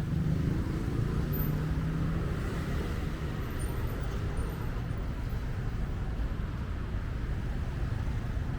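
Street traffic: a motor vehicle's engine hum close by, fading away over the first two or three seconds, then steady road noise.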